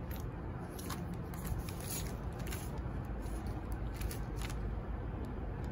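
Hands handling a sling bag and its strap on tissue paper and a plastic shopping bag: scattered light clicks and crinkles over a low steady rumble.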